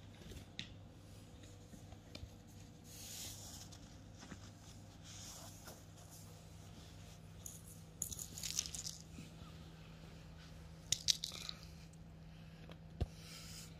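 Faint, scattered crunching and scratching as a kitten digs in a box of pellet cat litter: a few short bursts and sharp clicks over a faint steady hum.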